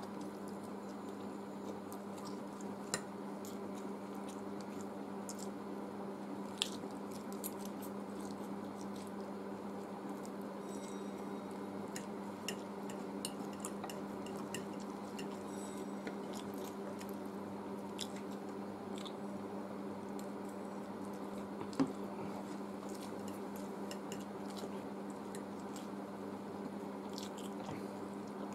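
Close-up eating sounds of two people chewing forkfuls of chowmein noodles, with scattered clicks of metal forks against glass plates, a few sharper ones standing out. A steady low hum runs underneath.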